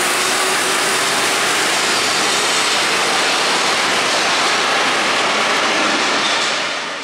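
Paris Métro train pulling out of an underground station: a loud, steady rush and rumble of the train running into the tunnel, which dies away near the end.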